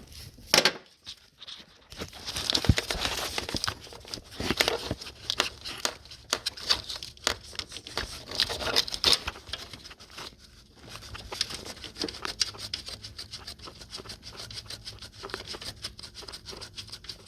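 Hands and tools working on parts under a car's hood: a long run of irregular clicks, taps and short scraping and rustling noises.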